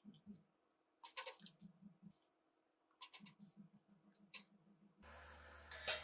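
Light metallic clicks and runs of soft taps from small pistol parts being handled. About five seconds in, a steady hiss starts abruptly.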